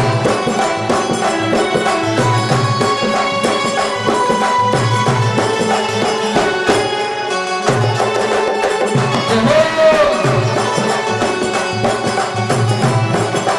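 Live Rajasthani devotional folk music in an instrumental passage: dholak drumming in a steady repeating rhythm under a keyboard melody, with electronic pad percussion.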